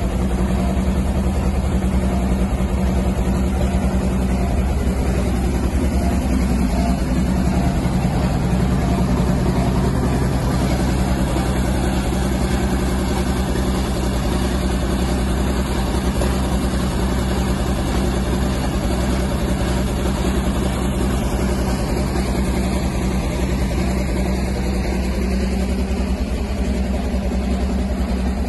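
Diesel engine of a Caterpillar D6 9U crawler dozer running steadily at idle.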